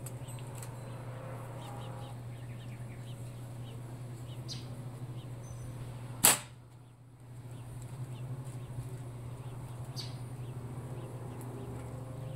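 Slingshot fired once: a single sharp snap as the drawn rubber bands are released, about six seconds in, over a steady low hum. A few faint clicks from handling the slingshot are also heard.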